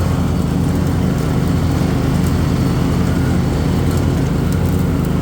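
John Deere Z465 zero-turn riding mower's engine running steadily.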